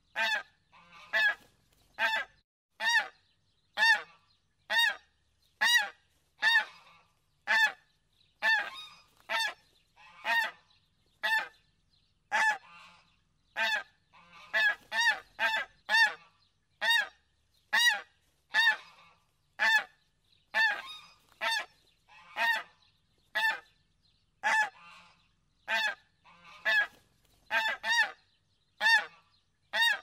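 Geese honking in a steady, rapid series of short calls, about three every two seconds, with no break.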